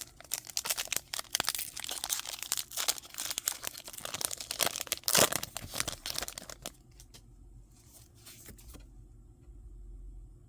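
A foil Pokémon card booster pack being torn open and its wrapper crinkled: dense crackling for about six and a half seconds, then a few soft rustles.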